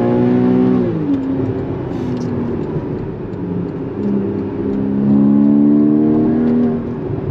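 Porsche 981 Cayman GTS flat-six under hard driving. It holds steady, then drops in pitch about a second in as the throttle closes, with a rough stretch and a few exhaust pops. From about four seconds it pulls again with rising pitch, then falls away near the end.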